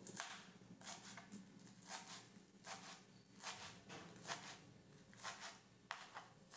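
Kitchen knife finely chopping green onions on a plastic cutting board: faint, regular taps, roughly one or two a second.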